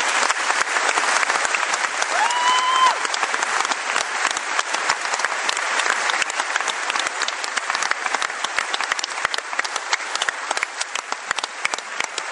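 Loud, sustained applause from a large audience clapping. About two seconds in, one short rising call stands out above the clapping.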